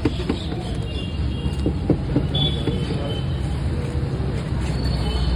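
Busy street-food-stall background noise: a steady low rumble with scattered short clicks and knocks, and faint high squeaky tones now and then.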